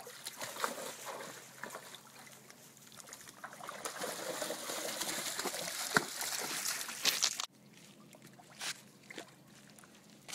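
Dobermann wading through shallow lake water, legs splashing and sloshing. The splashing builds to its loudest a few seconds in, then stops abruptly, leaving fainter lapping with a few small splashes.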